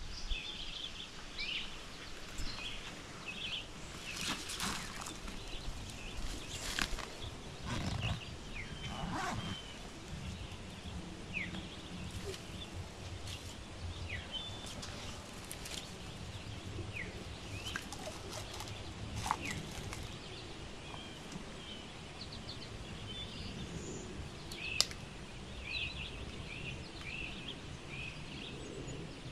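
Small birds chirping on and off, with short calls and quick down-slurred notes, over a low rumble of outdoor ambience, broken by a few scattered sharp crackles and snaps.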